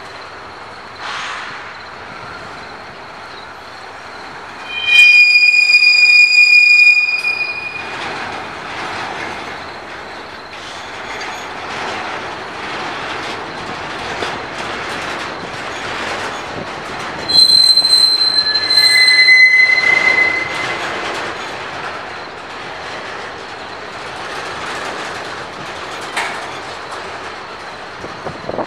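A BNSF intermodal freight train's well cars rolling past with a steady rumble and occasional clacks. Twice, about five seconds in and again about seventeen seconds in, steel wheels give a loud, high squeal lasting two to three seconds; these squeals are the loudest sound.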